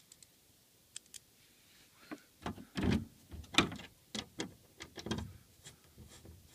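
Phillips screwdriver driving a screw into a plastic TV back plate: a few faint ticks, then a run of irregular clicks and short scrapes, loudest about halfway through.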